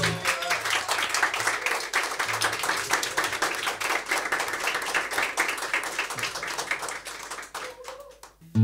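Applause of hands clapping after a song ends, thinning out and dying away near the end.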